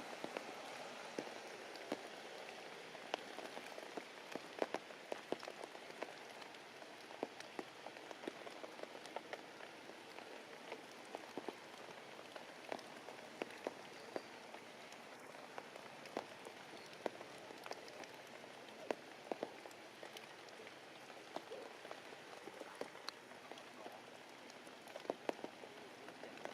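Rain falling steadily, with frequent sharp drops striking nearby surfaces.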